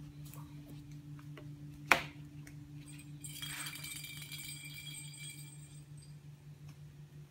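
A kitten batting a small plastic ball toy across a hard floor, the ball jingling and rattling for about three seconds from around the middle. A single sharp knock comes about two seconds in, and a steady low hum runs underneath.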